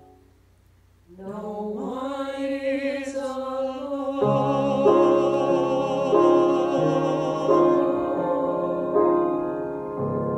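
Small vocal ensemble singing in harmony with piano. After about a second of near silence the voices come in one after another and hold a long chord with vibrato, and about four seconds in the piano joins with chords struck roughly every second and a half.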